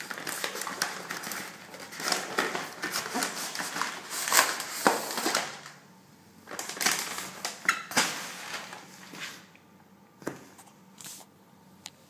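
Crumpled brown kraft paper wrapping crinkling and rustling as it is pulled off a cardboard box by hand, in two long spells, followed by a few light knocks and taps near the end.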